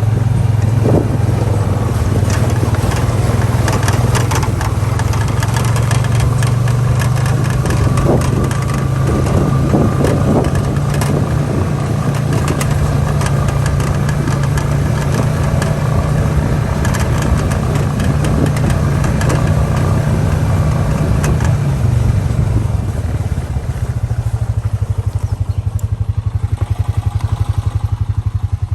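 Motorbike engine running steadily while riding, then easing off to a lower, evenly pulsing idle about 23 seconds in.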